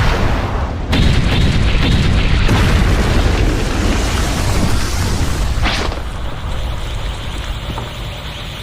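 Explosion sound effect: a sudden boom, a second blast about a second in, then a long low rumble that slowly dies away, with a brief swish about six seconds in.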